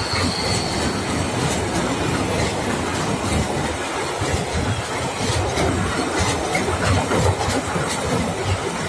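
Freight train of hopper wagons rolling past at close range: a steady rumble with the wheels clattering over the rails, and a thin high squeal near the start.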